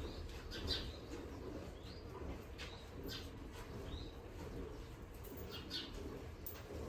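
Small birds chirping now and then, short high calls at irregular intervals, over a low steady hum.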